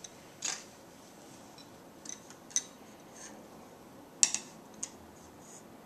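Light clicks and taps of red number strips being picked up and set down on an addition strip board, half a dozen separate clicks, the loudest a quick double click about four seconds in.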